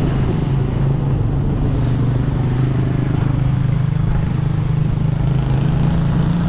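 Small motorcycle engine running steadily at low cruising speed, heard from on board the bike, with wind and road noise over it.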